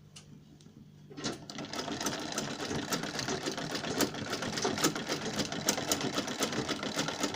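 Sewing machine stitching an invisible zipper onto a dress, starting about a second in and then running in one steady rapid burst of stitches.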